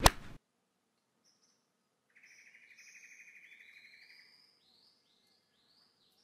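Golf club striking a ball: one sharp crack with a brief ring, the loudest sound here. About two seconds later, birds chirping: a fast trill followed by several short rising chirps.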